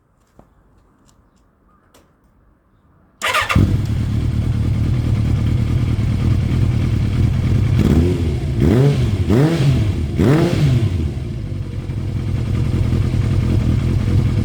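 Kawasaki ZRX1200R inline-four engine, running through an aftermarket Nojima Lock-On silencer, starting: after a few faint clicks it catches suddenly about three seconds in and idles. It is then blipped four times in quick succession and settles back to idle.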